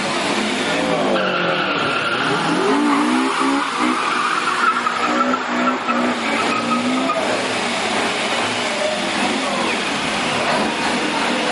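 Detroit Diesel 8V92 two-stroke V8 diesel in a semi-tractor, its pitch rising and falling as it is revved. A steady high whine runs through the first half over loud, rushing noise.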